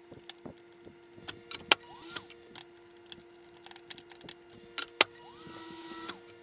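Silicone spatula stirring chocolate chips in a glass bowl, with repeated clicks and knocks of the spatula against the glass and a couple of short squeaks. A steady low hum runs underneath.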